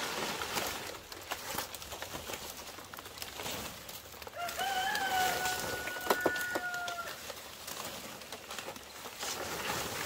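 A rooster crowing once, a single long held call beginning about four seconds in. Scattered crackling and small clicks run underneath, with two sharp knocks near the end of the crow.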